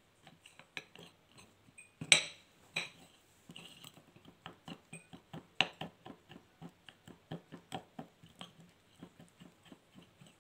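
Metal spoon stirring a thick paste of egg and powdered flours in a small ceramic bowl, clinking and scraping against the bowl about three times a second. Two louder knocks come about 2 and 5.5 seconds in.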